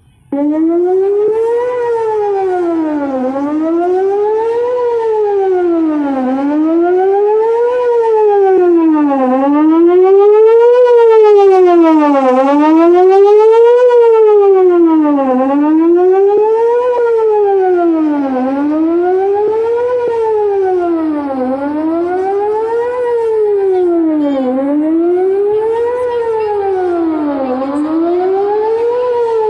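Electronic outdoor tornado warning siren sounding a test wail. It comes on abruptly at full strength just after the start, then rises and falls in pitch about every three seconds. It grows louder toward the middle and eases off again.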